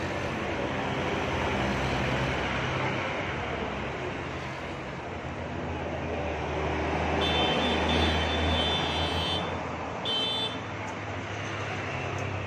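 Road traffic going by, a steady rumble and hiss that swells as a vehicle passes loudest about eight seconds in. A high-pitched whine sounds twice in the second half.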